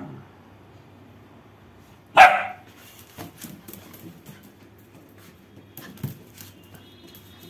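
A dog barks once, loud and short, about two seconds in. Faint scattered taps and scuffles follow as it goes after a balloon on a tiled floor.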